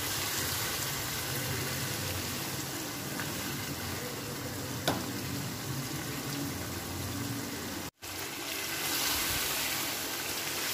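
Beef, tomato and spice masala sizzling steadily as it fries in a karahi, with a few clicks of the spatula against the pan. The sound drops out for a moment about eight seconds in.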